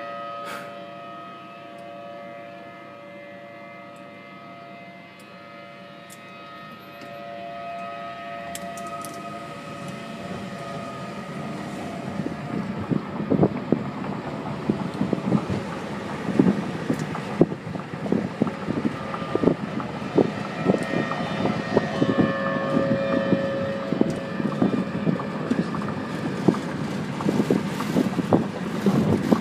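Civil defense warning siren sounding a steady tone that fades away over the first ten seconds or so. An irregular rumbling noise with many sudden knocks then builds up and grows louder.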